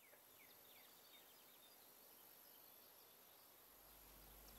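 Near silence: faint background hiss with a few faint short chirps near the start.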